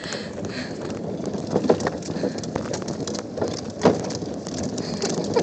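Plastic wheels of a toddler's ride-on toy car rolling over a concrete sidewalk: a rough rumble with scattered small clicks and one sharper knock about two-thirds of the way through.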